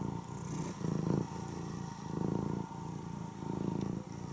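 Tortoiseshell domestic cat purring, a steady low rumble that swells louder with each breath, about every second and a half.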